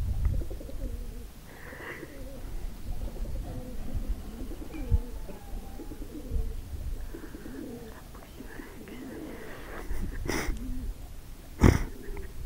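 Pigeons cooing in low, wavering phrases. Two sharp knocks come near the end, the second one louder.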